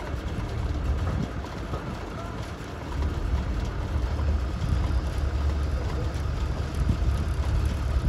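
An engine running steadily with a low rumble, getting a little louder about three seconds in.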